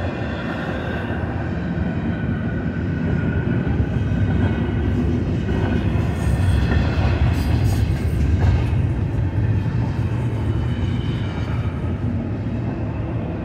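Double-stack container well cars of a freight train rolling past: a steady low rumble of steel wheels on the rails, swelling a little for a few seconds in the middle.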